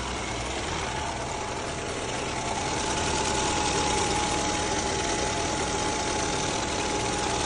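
Ford Fusion 1.6-litre four-cylinder engine idling steadily as it warms up after a timing-belt job, with a faint steady whine; it gets slightly louder about three seconds in.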